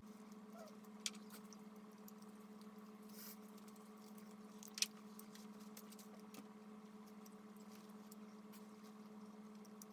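Quiet room tone with a faint steady hum, broken by two short sharp clicks, about a second in and again near the middle.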